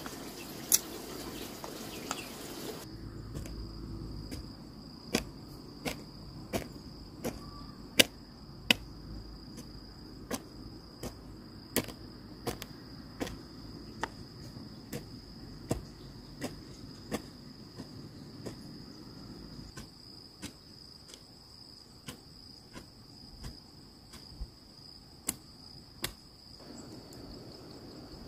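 Steady high-pitched insect trill, with sharp knocks repeating at an even pace of about three every two seconds.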